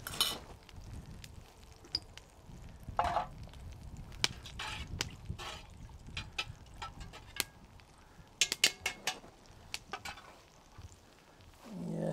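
Scattered clinks and knocks of cooking pots and utensils being handled on a camp table, with a quick run of clinks about eight and a half seconds in and a couple of brief swishes.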